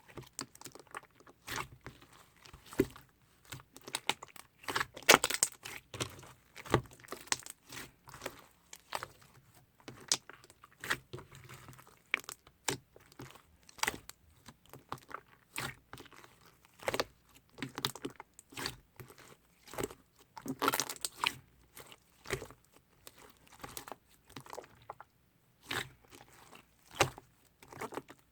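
Soft slime being squeezed, pressed and stretched by hand, giving a dense run of small irregular crackling pops and squishes, busiest about five seconds in and again about twenty seconds in.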